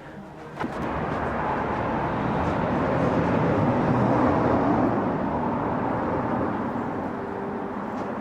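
A motor vehicle passing by: a broad, steady rush that builds for a few seconds, peaks near the middle and slowly fades.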